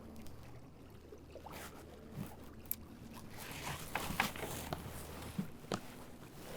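Canoe paddled on calm water while trolling: paddle strokes with trickling water, and a few light clicks and knocks, the loudest about four seconds in.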